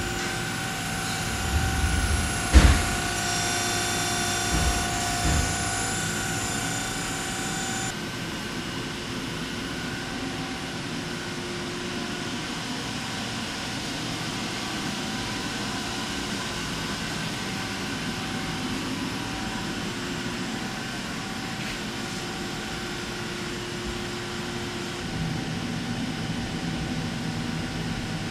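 Eurotech 730-SLY CNC lathe running: a steady machine hum with several steady whining tones. There is a sharp knock about two and a half seconds in and softer thumps around five seconds. The highest whine stops about eight seconds in.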